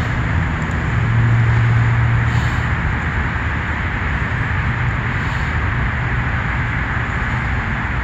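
Motor vehicle noise: a steady low rushing noise with an engine hum that is loudest about a second in and weakens after a couple of seconds.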